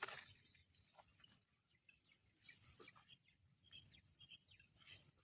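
Near silence with faint outdoor ambience: small birds chirping now and then over a steady high-pitched insect tone, with a few soft clicks.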